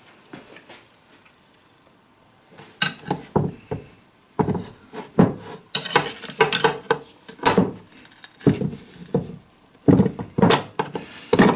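Metal knocks and clatter from a ride-on mower's transaxle being worked on as a stuck gear is freed: a quick, irregular series of sharp knocks that starts about three seconds in and keeps going.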